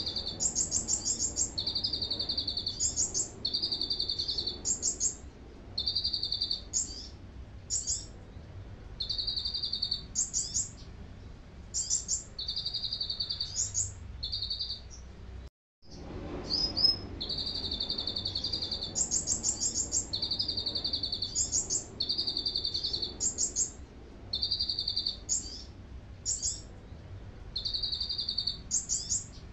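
Caged kolibri ninja sunbird singing canary-style song: roughly one-second buzzy trills alternating with short, high, quickly repeated notes, phrase after phrase with brief pauses. The sound cuts out completely for about half a second near the middle.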